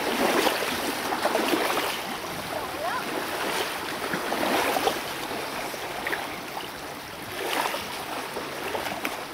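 Lake water splashing and sloshing as swimmers move beside an inflatable towable tube and one climbs up onto it, with a few brief faint voice-like calls.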